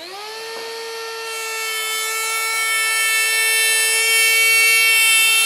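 DeWalt compact wood router spinning up to speed, then running with a steady high whine as it cuts into a wooden board, growing louder over the first few seconds.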